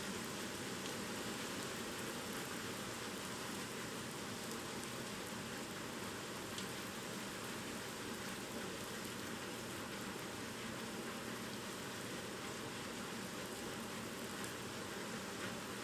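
Steady rain falling during a typhoon, an even wash of noise.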